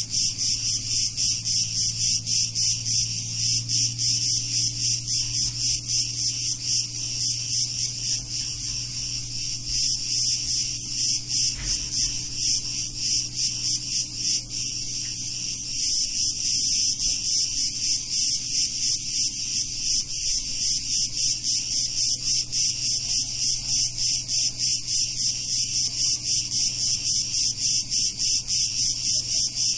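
A chorus of cicadas singing in a dense, rapidly pulsing high-pitched buzz. The chorus eases off for several seconds around the middle, then comes back full.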